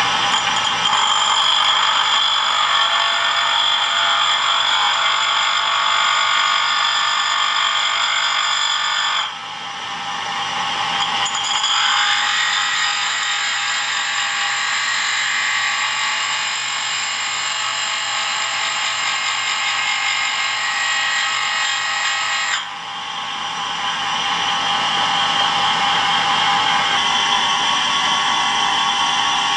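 Homemade tool-and-cutter grinder running, its belt-driven grinding spindle giving a steady high whine while a dull cutting tool is held against the wheel and sharpened. Twice the sound drops suddenly, then climbs back up over a second or two.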